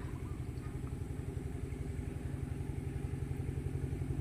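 Engine of a passing river boat chugging steadily at about eight beats a second, growing a little louder near the end.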